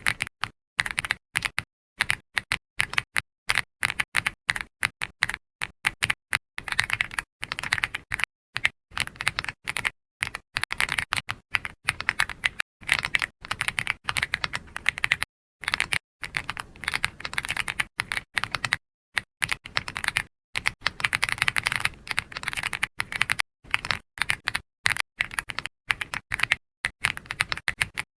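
Computer keyboard typing: rapid runs of keystroke clicks with brief pauses between bursts.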